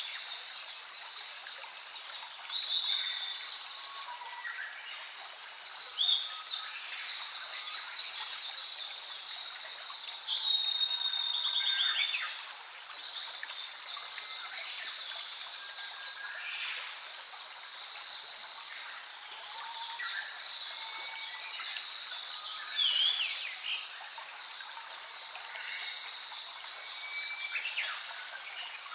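A chorus of many wild birds singing, with overlapping chirps, trills and whistles throughout.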